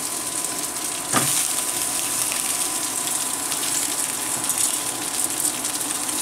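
Breaded pollock fillets sizzling in hot canola oil in a frying pan, a steady hiss with small crackles. A sharp knock sounds about a second in.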